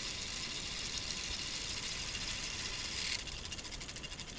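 Small battery-driven motor turning a K'nex plastic gearbox, a steady whir of spinning gears. About three seconds in, the whir drops and becomes a fast, fine clicking of plastic gear teeth.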